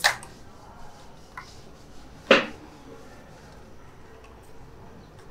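Two sharp plastic clicks about two seconds apart, the second the louder, with a faint tick between them, as the DJI Mini 2 drone's snap-on covers are unclipped.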